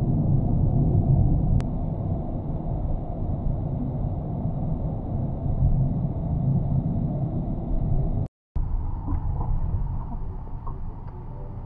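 Steady low rumble of a moving vehicle. It cuts out for a moment about eight seconds in and comes back slightly quieter, with a few faint ticks.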